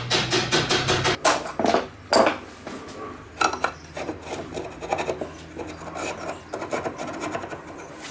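A mallet rapidly tapping a wooden strip held against the cutterhead bearing of a DeWalt DW733 planer, driving the bearing out, for about the first second. After a few louder knocks, metal scrapes and rubs irregularly as the loosened cutterhead is worked free and slid out of the planer frame.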